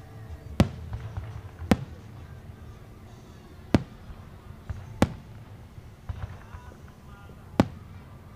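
Aerial fireworks shells bursting: five sharp booms, unevenly spaced one to two and a half seconds apart.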